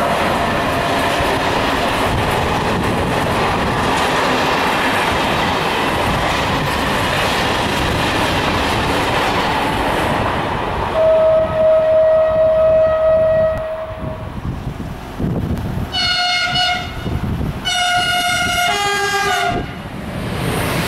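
Freight wagons rolling past on the rails with a steady rumble and clatter for about ten seconds. Then an electric locomotive's horn sounds: one long blast, two shorter blasts, and a final blast at a different pitch near the end.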